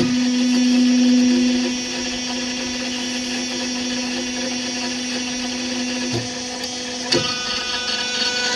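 Electric motor of an interlocking brick-making machine running with a steady hum, a little quieter after about two seconds, with a few short knocks near the end.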